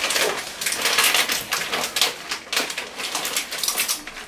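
Plastic bag of tortilla chips crinkling as a hand rummages in it: a dense, irregular run of rustles and crackles.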